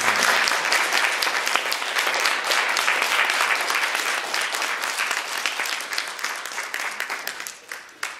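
Audience applauding, a dense patter of many hands clapping that tapers off and stops near the end.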